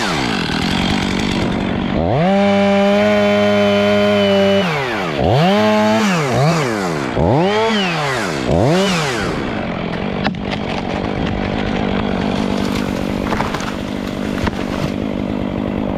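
Two-stroke chainsaw engine held at high revs, then its throttle is blipped up and down several times in the middle. It then runs on with a rougher, noisier sound.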